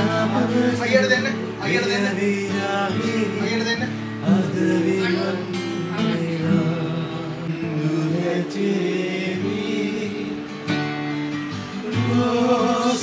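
A man singing a song to acoustic guitar accompaniment.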